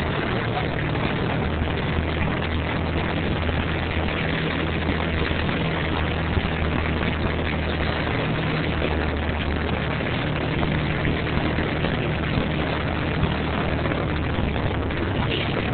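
A steady low drone of unchanging pitch under a constant hiss, with no breaks.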